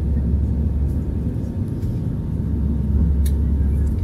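Steady low rumble inside the cabin of an Airbus A320 climbing out after takeoff: engine and airflow noise, with one faint click about three seconds in.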